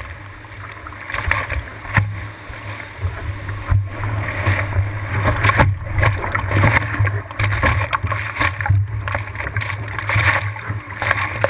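Surf whitewater rushing and splashing around a surfboard, picked up by a camera mounted low on the board's nose, with a steady low rumble and occasional sharp slaps of water.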